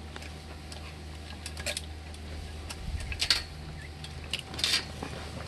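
Steel saw chain links clinking and rattling against the chainsaw's guide bar as the new chain is worked onto the bar, in a few short bursts of clicks about one and a half, three and four and a half seconds in.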